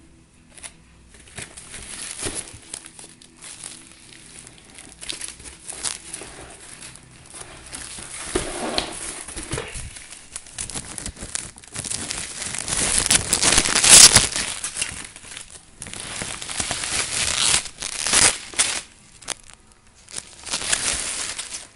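Plastic wrapping crinkling and rustling in irregular bursts as a computer monitor is unpacked from its box, loudest about halfway through.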